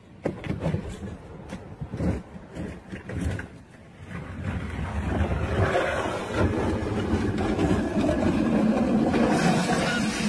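Several knocks and clatters as a wheeled plastic trash bin and furniture are thrown down onto a paved driveway. From about four seconds in, a steady rumble grows louder and holds.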